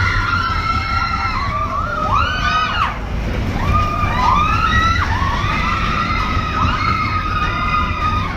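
Roller coaster riders screaming over the steady low rumble of the moving coaster train, many rising and falling shrieks overlapping.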